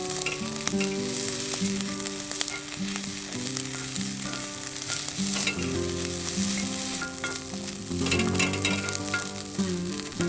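Shell-on oysters sizzling and hissing on a wood-fire grill, with a steady frying sound.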